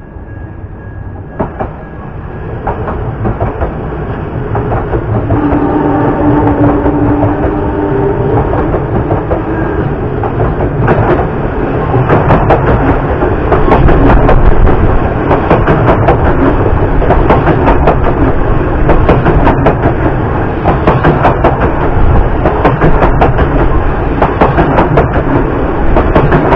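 Odakyu electric commuter train approaching and running past close by, getting louder over the first few seconds, then a loud, dense clatter of wheels over the rail joints as the cars go by. A steady hum is heard for a few seconds as it comes in.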